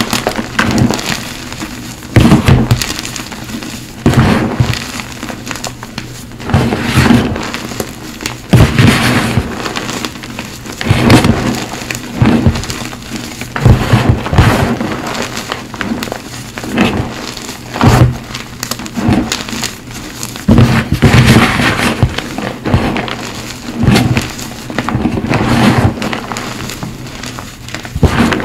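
Cap gym chalk, crumbled into a tub, being squeezed and crushed by hand. Crunches come in irregular bursts, about one every one to two seconds.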